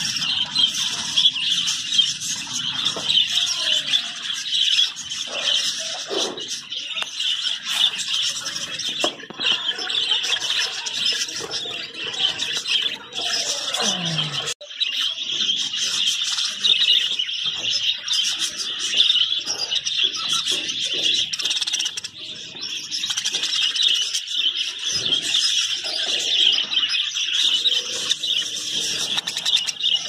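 Budgerigars chirping and chattering continuously, many birds at once, with a brief break about halfway through.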